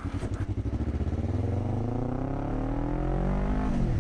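Motorcycle engine pulling from low revs, its pitch rising steadily for about three seconds, then dropping sharply near the end.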